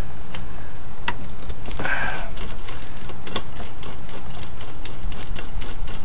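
A small screwdriver turning screws out of a metal hard-drive housing inside a desktop PC: an irregular run of light metallic clicks and ticks, with a short scrape about two seconds in. A steady low electrical hum runs underneath.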